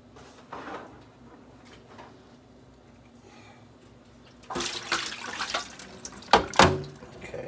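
Water poured out of an aluminum foil pan, splashing into a stainless steel sink from about four and a half seconds in, with two sharp knocks near the end.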